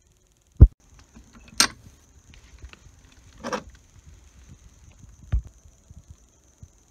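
Handling knocks and clicks while a boat is being shut and locked up: a loud thump about half a second in, a sharp click a second later, a brief scrape near the middle, and another thump about five seconds in. A faint steady high-pitched insect trill runs underneath.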